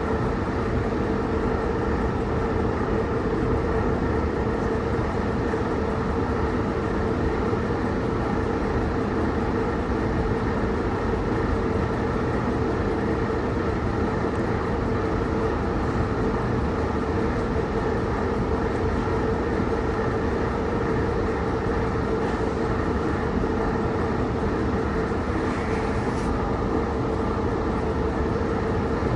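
Steady vehicle noise: an even low rumble and hiss with a constant hum, unchanging throughout.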